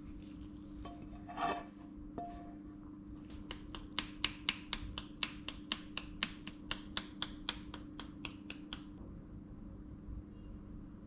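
A small glass spice grinder being twisted over a bowl: a run of sharp clicks, about five a second, lasting some five seconds. Before it, a spatula scrapes food out of a pan, and a steady low hum runs underneath.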